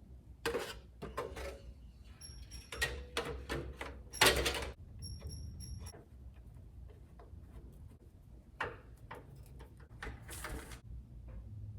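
Scattered clicks and knocks of hardware being handled, with one sharp knock about four seconds in and another near the end, and a few very short high beeps around two seconds and again about five seconds in.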